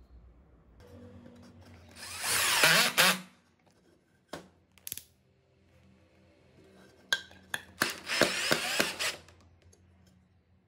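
HILDA 21V cordless drill driving a screw into a wooden board, in two runs of about a second each. Short handling clicks come between the runs.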